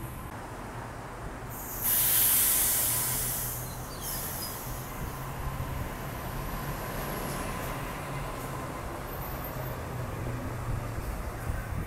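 Sydney Trains Waratah electric train running past along the platform, with a steady low rumble. About two seconds in a loud hiss of air bursts out for about two seconds, then a faint high whine slowly falls in pitch.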